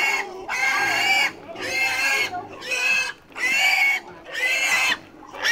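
An animal squealing over and over, about six high-pitched calls roughly a second apart.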